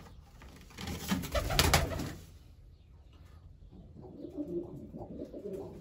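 Domestic pigeon's wings flapping as it takes off from its perch, a loud burst about a second in lasting roughly a second. Then, from about the middle on, pigeons cooing low.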